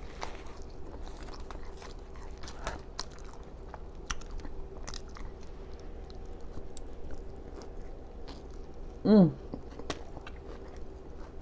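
Close-miked mouth eating sounds: wet chewing, biting and lip-smacking on food, a continual run of small clicks and smacks. A short vocal sound from the eater about nine seconds in.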